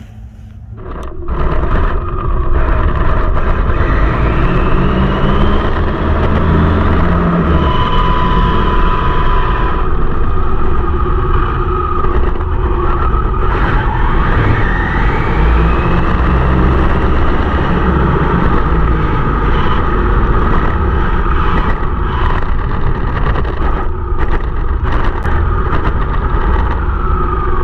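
Onboard sound of an Arrma Infraction 8S RC truck running on asphalt. Loud wind and road rumble start about a second in and continue, with the electric motor's whine gliding up and down in pitch as it speeds up and slows.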